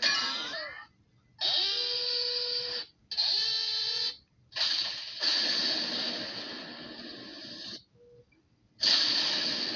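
A run of separate cartoon sound effects played one after another with short silent gaps: a brief sound with gliding pitch, two pitched sounds of about a second each, then a longer noisy sound lasting about three seconds, and another starting near the end.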